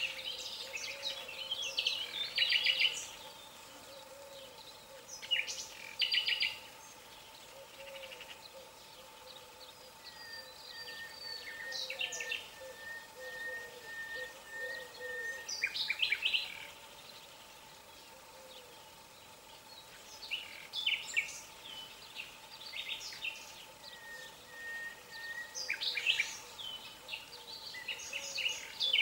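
Songbirds chirping in short clusters of quick, high notes every few seconds.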